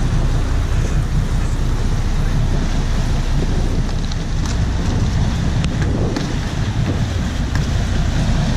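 Steady wind noise on the microphone over the low rumble of a fishing boat's engines under way, with water rushing in the wake.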